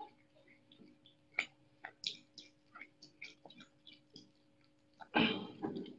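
Young otter chewing a catfish: a run of quick, wet clicks and smacks as it bites and crunches. A loud breathy burst comes about five seconds in.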